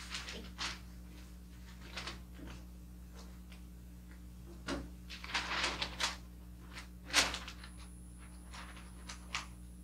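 Sheets of wrapping paper rustling and crinkling in irregular bursts as they are handled and folded around a box, with one sharper crackle about seven seconds in.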